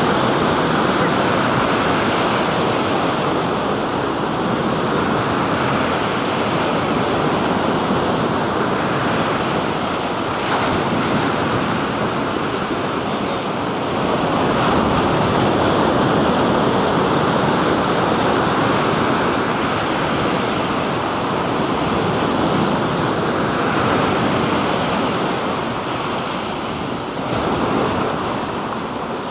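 Black Sea waves breaking and washing on the shore in a continuous surf, swelling and easing every few seconds, with some wind on the microphone.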